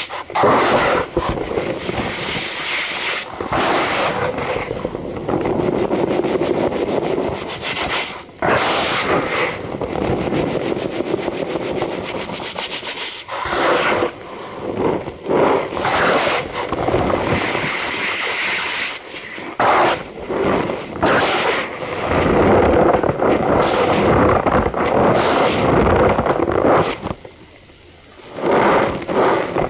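Cornstarch powder squeezed and rubbed by hand, making a continuous squeaky crunching, with a few brief breaks, one near the end.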